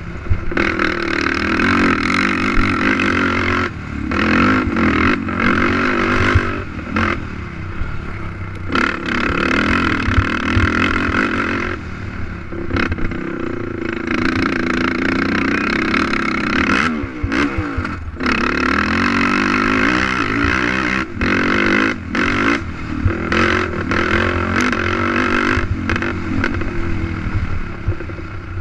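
Racing ATV quad engine revving hard and backing off again and again, the sound dropping out briefly every few seconds between bursts of throttle, with one clear rise and fall in pitch past the middle.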